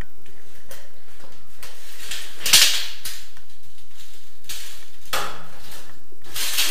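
Hand tools and a measuring staff being handled: a series of separate knocks and clacks, the loudest about two and a half seconds in.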